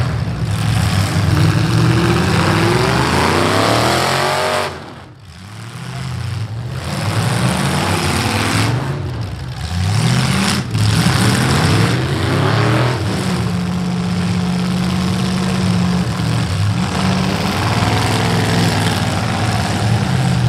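Demolition derby cars' V8 engines revving hard, their pitch rising and falling again and again as the cars accelerate and back off, with a brief drop in loudness about five seconds in.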